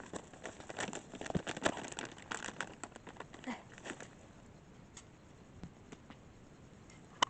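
Scattered rustling and crinkling with small sharp clicks and knocks, busy for about the first four seconds and then dying down to occasional faint ticks.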